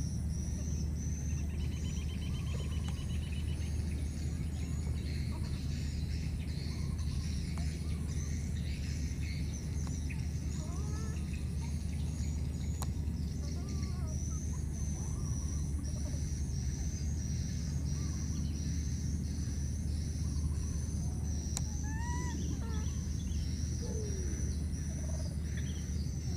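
Outdoor ambience of insects chirring in a fast, even pulse over a steady low rumble, with scattered short rising-and-falling calls from about ten seconds in.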